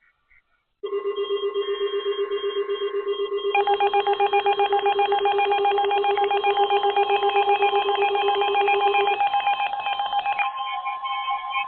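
Emergency alert attention tone: several electronic tones sounding together and pulsing rapidly, starting about a second in. The mix of pitches changes about three and a half seconds in, and again near nine and ten seconds.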